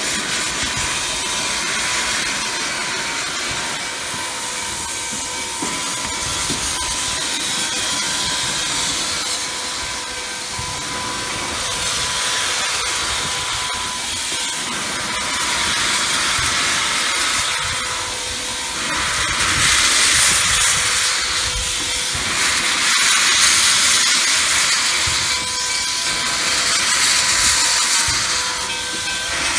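Nickel Plate Road 765, a Lima-built 2-8-4 Berkshire steam locomotive, hissing steam from its open cylinder cocks. The hiss runs on throughout and surges louder every few seconds in the second half, over a faint steady whine.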